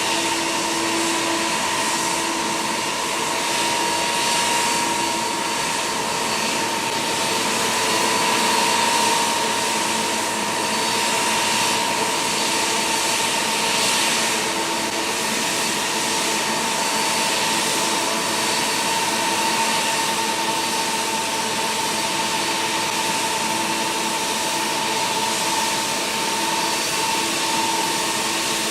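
Boeing 777-300's jet engines running, a steady whine over a broad rushing noise.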